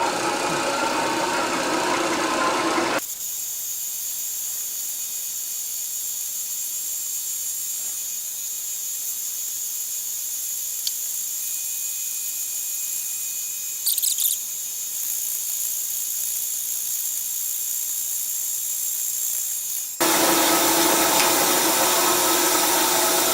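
Milling machine spindle turning a 3-inch slotting cutter at about 200 RPM while taking a 50-thousandths-deep cut, with a steady high-pitched whine. The sound is fuller and lower for about the first three seconds and again from about three seconds before the end.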